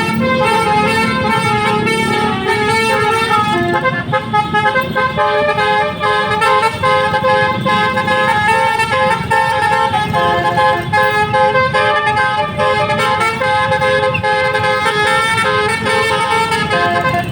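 A bus's Basuri multi-tone 'telolet' horn playing a tune: several horn notes sounding together, held and changing pitch in steps, over a low rumble.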